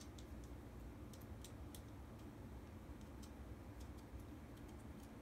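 Irregular light clicks and ticks of a motorcycle dash cam's mount and bracket parts being handled and moved, over a faint steady low hum.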